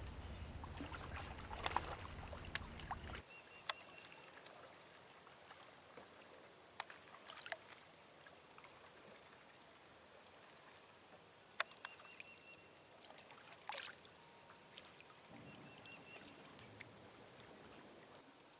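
Quiet river ambience from kayaks on the water. A low wind rumble on the microphone lasts about three seconds and stops suddenly. Then come faint water sounds with scattered small clicks and knocks, likely from kayak gear.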